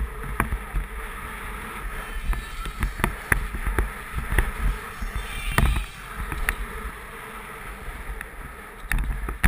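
BMX bike riding fast over a track, heard from a camera mounted on the bike: a steady rumble of wind on the microphone and tyres on the surface, broken by irregular sharp rattles and knocks from the bike jolting over the bumps.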